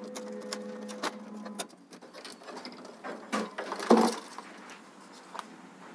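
Power supply board being worked out of an HP 1005 printer's plastic chassis by hand: scattered clicks, knocks and scrapes of plastic and circuit board, the loudest knock about four seconds in. A faint steady hum runs under the first second and a half.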